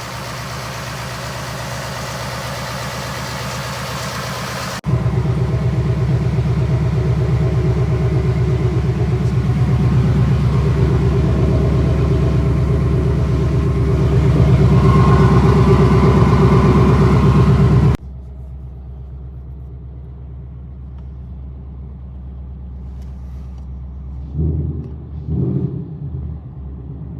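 Ford Coyote 5.0 V8 idling steadily. It jumps much louder about five seconds in and drops back quieter at about eighteen seconds, with a few brief rises near the end.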